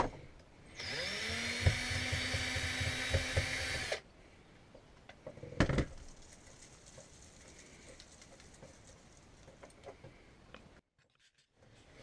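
Power drill spinning up and running steadily for about three seconds while a new curtain rod is mounted, then a single sharp knock and faint handling sounds.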